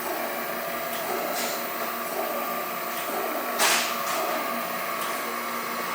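Chevalier FSG-1020AD surface grinder making its spark-out passes: the hydraulic table runs back and forth under the spinning wheel with no more feed, a steady machine hum with a short hissing surge a little past halfway.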